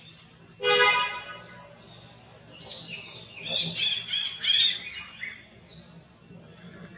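Birds calling: one short, clear call about a second in, then a quick run of five or so high chirps in the middle.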